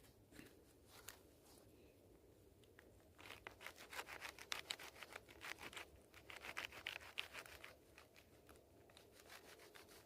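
Honey mushroom stems being cut: a dense, rapid crackling crunch starting about three seconds in and lasting about four seconds, with a few faint scrapes around it.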